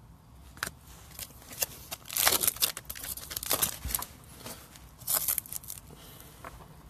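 Wrapper of a baseball card pack crinkling and tearing in two bursts, about two seconds in and again about five seconds in, between light clicks of cards being handled.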